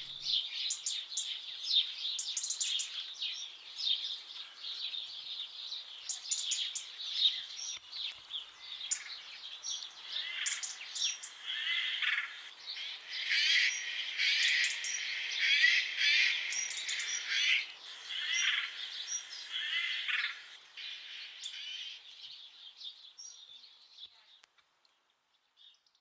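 Songbirds chirping and singing, a busy run of short chirps and trills that fades out near the end.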